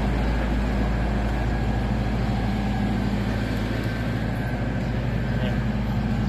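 Diesel engine of a Kalmar container handler idling steadily, a continuous low hum with no change in speed.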